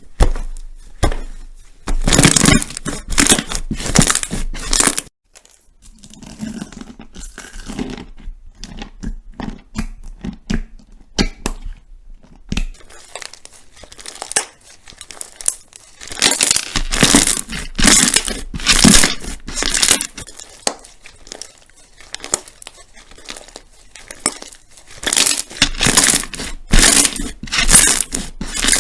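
Slime being squeezed and pressed by hand, giving off dense crackling and popping. The crackle comes in louder bursts separated by quieter stretches of softer squishing.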